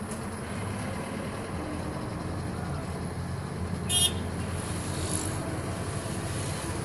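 Steady road and traffic noise from inside a moving car, with a low rumble. About four seconds in, a short, sharp, high-pitched sound stands out as the loudest moment.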